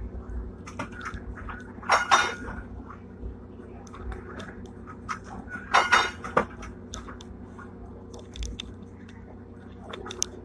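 Hong Kong double-decker tram running, heard from on board: a steady low hum under frequent clicks and rattles, with two louder metallic clanks about two seconds and six seconds in.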